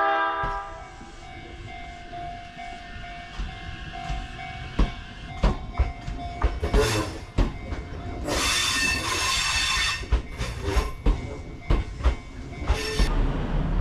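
A train: a short horn blast right at the start, then a steady wheel squeal for about six seconds. Scattered clacks and knocks follow, with a burst of hiss about eight seconds in.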